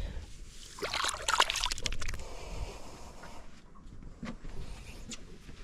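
Water splashing and sloshing beside a boat, loudest for about a second shortly after the start, then a lower lapping.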